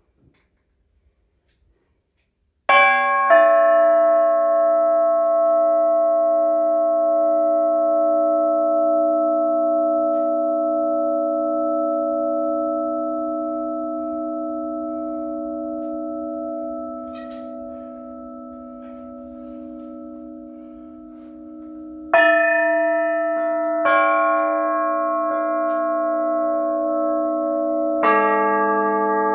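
Hanging metal sound plates struck with a mallet: two strikes about three seconds in that ring on and slowly fade for almost twenty seconds, then three more strikes near the end, each adding a fresh layer of bell-like ringing tones.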